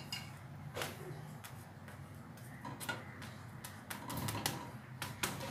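Scattered light clicks and taps of a slotted spatula against the pan as a chapathi is turned and pressed down while it cooks, with a quick cluster of taps in the second half, over a faint low hum.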